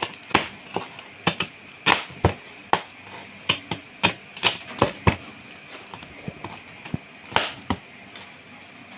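Cleaver chopping crispy deep-fried pork belly on a plastic cutting board: a run of sharp chops, about two a second, thinning to a few scattered strokes over the last few seconds.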